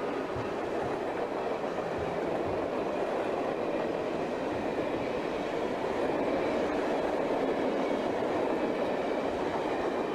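Prewar Lionel toy train running around its small track: a steady whir and rattle of the electric motor and wheels on the rails, now working again after its wiring repair.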